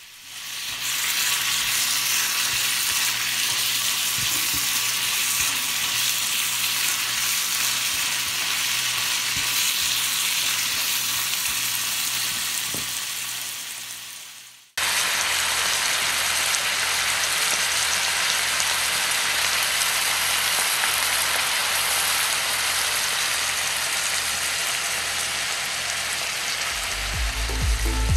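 Food sizzling in hot oil in a pan with a steady hiss, stirred now and then. About halfway through it fades and cuts off, then starts again at once.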